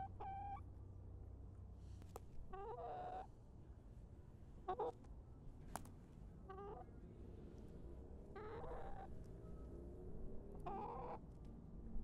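Young chickens calling: about six short, wavering calls spaced a second or two apart, with two sharp clicks between them.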